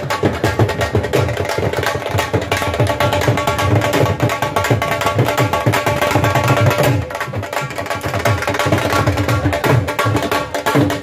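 Several dhols, large Punjabi barrel drums, played together in a fast, dense, driving rhythm that runs on without a break.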